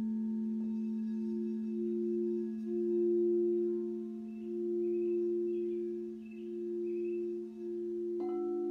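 Crystal singing bowls ringing in layered sustained tones: a low steady tone under a higher one that swells and fades in a slow wobble. Another bowl is struck near the end, adding fresh higher tones.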